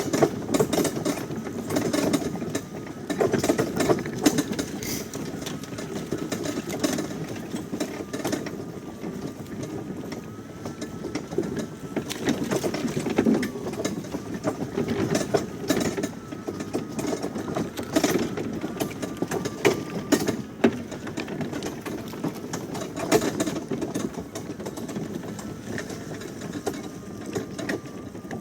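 Greenworks electric riding mower driving along, its drive motor whining faintly under a steady, uneven rattle and clatter of the towed wagon and its load of firewood over rough ground.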